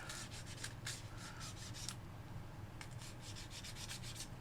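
Scrubbing the grimy edges of a PS4 controller's plastic shell with 91% rubbing alcohol: quick back-and-forth rubbing strokes, about five a second, pausing for about a second midway.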